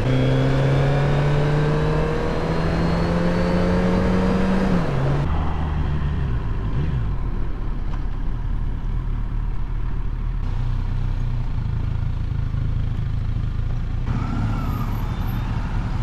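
Motorcycle engine accelerating, its note climbing steadily for about five seconds, then dropping as the throttle closes. It settles into a lower, steady running note for the rest.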